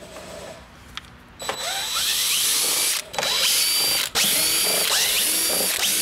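Cordless drill-driver fitted with a security Torx bit, backing out small screws. After a quiet first second or so, the motor runs in three spells with short breaks between, each spell starting with a rising whine as it spins up.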